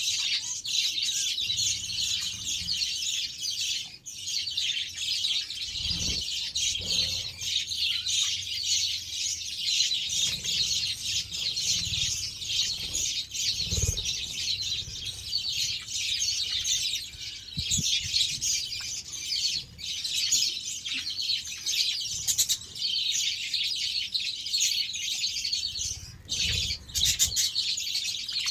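A flock of budgerigars chattering and chirping without a break, many birds at once, with a few soft low thumps now and then.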